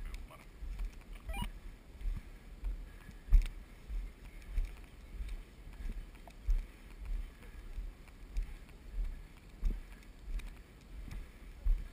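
Footsteps through long grass picked up by a body-worn camera: regular dull thumps about two a second, with a few sharper knocks of handling noise.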